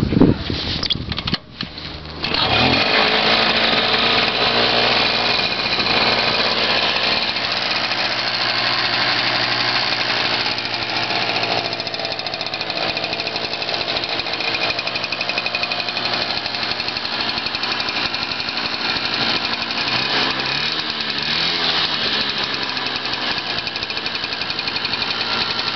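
Small two-stroke engine of a Romet motorcycle catching about two seconds in and then running steadily at idle with a rapid putter, its pitch wavering briefly about twenty seconds in.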